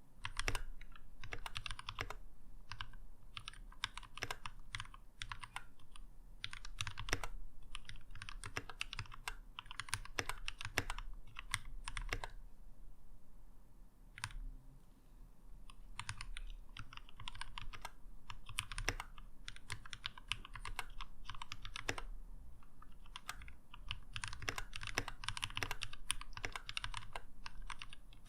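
Keychron K6 mechanical keyboard being typed on in quick, irregular runs of key clicks, with a pause of a few seconds about halfway through before the typing resumes.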